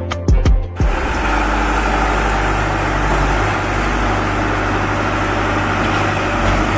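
Brief music with plucked notes, cut off under a second in by the steady running of a heavy engine on road construction machinery.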